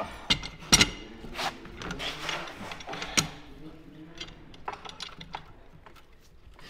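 Large adjustable wrench knocking and scraping against a dirt bike's metal foot lever as it is levered to bend it. There are a few sharp metal knocks, the loudest under a second in and about three seconds in, with softer clicks between.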